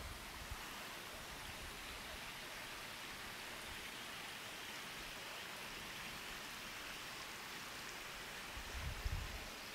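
Steady soft hiss of outdoor background noise in a bare-branched forest, with a few low rumbles on the microphone near the end.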